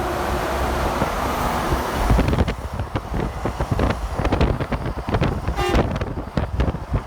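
Highway traffic passing close by, then wind buffeting the microphone from about two seconds in. Near the end, a brief horn toot.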